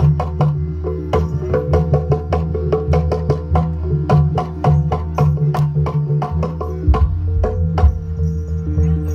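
Live jaranan (kuda lumping) gamelan music: quick, crisp percussion strikes, several a second, over held low tones.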